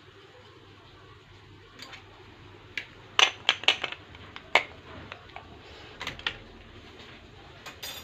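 Sharp plastic clicks and light knocks from small kitchen containers being handled, a spice container and its lid, with a quick cluster of clicks about three to four seconds in and a few more near the end.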